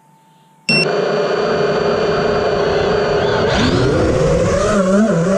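FPV quadcopter's Emax RSII 2306 2400kv brushless motors with DalProp propellers starting up abruptly under a second in and spinning at a steady idle whine, then about three and a half seconds in the pitch rises and wavers up and down as the throttle is worked.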